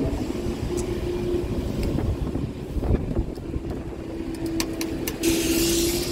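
A passing vehicle: a low rumble with a steady hum, with wind noise on the microphone.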